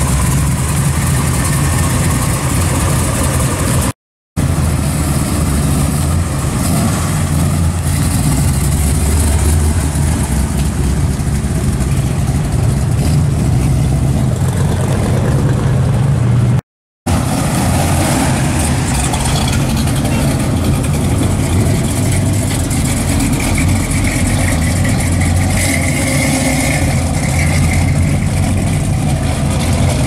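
Classic muscle car engines running at idle and low speed, a steady deep exhaust sound with some light revving. The sound breaks off for a moment twice, about 4 seconds in and about 17 seconds in.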